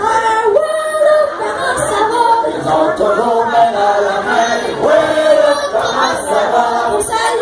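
A group of men's and women's voices singing a French folk song together as a chorus, in long held notes.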